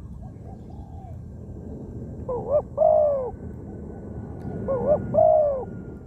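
Spotted dove cooing: two loud call phrases of a few notes each, the first about two seconds in and the second near the end, with a fainter coo at the start from another dove.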